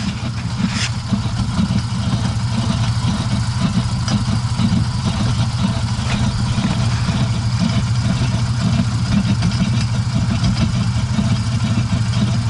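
IZh 2125 Kombi's engine idling in first gear with a jacked-up rear wheel spinning free, the driveline knocking and rattling steadily. The owner hears the knocks coming from the gearbox end, sees the driveshaft wobbling, and suspects a worn universal joint or a worn final-drive pinion shaft.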